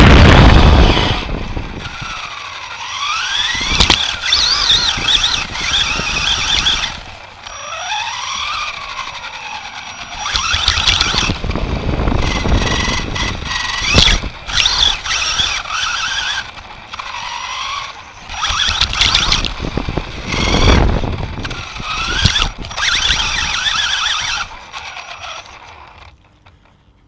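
Electric motor and drivetrain of an Associated SC10 RC short-course truck whining up and down in pitch as it speeds up and slows in bursts, with tyre noise and a couple of sharp knocks as the chassis hits the ground. The sound dies away near the end as the truck stops.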